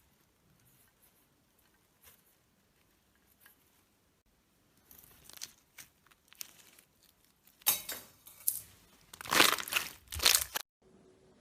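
Slime being handled: faint clicks at first, then crackling, crunchy squishes that grow louder, with a few loud presses near the end before it cuts off suddenly.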